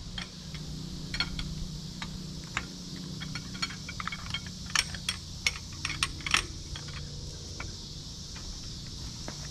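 Scattered light metallic clicks and clinks of hand tools being handled on metal, a few louder ones around the middle, over a low steady hum.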